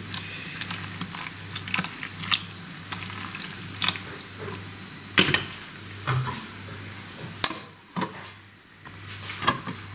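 Wooden spoon stirring chopped zucchini and water in a large aluminium pot, with sharp knocks of the spoon against the pot. Near the end the aluminium lid is put on the pot with a metallic clank.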